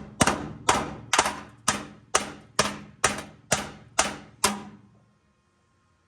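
Hammer striking car-body sheet metal in a steady rhythm, about two blows a second, each with a short metallic ring; about ten blows, stopping roughly four and a half seconds in.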